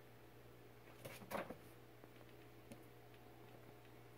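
Near silence with a steady low hum; about a second in, a short scuffling rustle as a black kitten grapples a socked foot, and a faint tick a little later.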